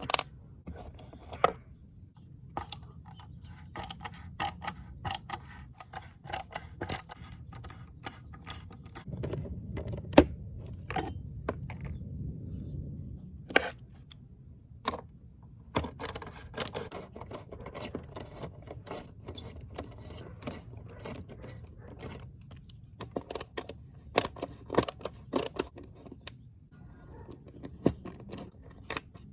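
Scattered clicks, clinks and knocks of small metal parts and hand tools being handled during restoration work, with a stretch of low rubbing noise around ten seconds in.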